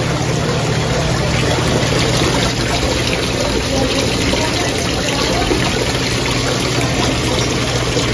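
Small ornamental waterfall falling from artificial rocks into a fish pond: a steady splashing rush of water, with a steady low hum underneath.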